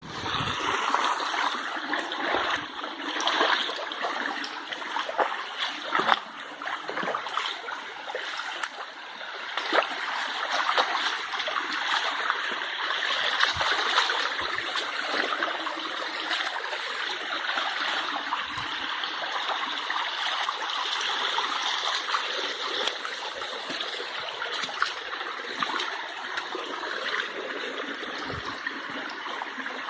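Water of a stream running steadily, with a few louder splashes in the first ten seconds.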